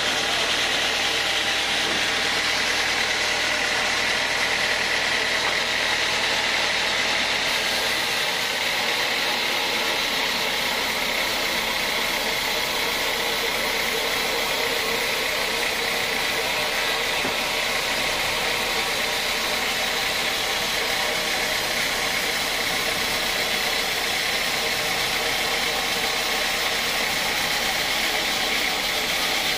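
Large horizontal band sawmill running steadily as its band blade saws lengthwise through a teak log. A low hum drops away about eight seconds in.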